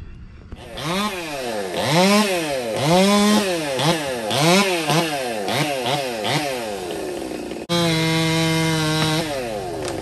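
Stihl MS 200T top-handle chainsaw revving up and down in quick repeated blips, about two a second. After an abrupt break near the end it runs at a steady high pitch.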